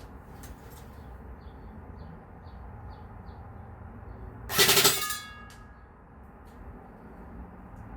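Tippmann Air Raid AR6BB airsoft electric gun firing one short full-auto burst of about half a second, roughly halfway through, followed briefly by a metallic ring. Small birds chirp faintly before the burst.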